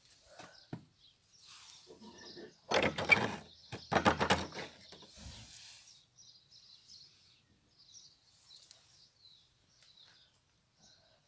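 Two loud bursts of scraping and crunching, about three and four seconds in, as of rubble or old wood being stepped on or moved. Faint high bird chirps follow.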